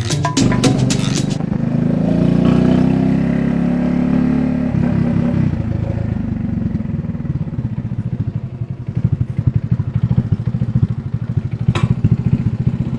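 Motorcycle engine running, settling from about nine seconds in into an idle with a fast, even chug.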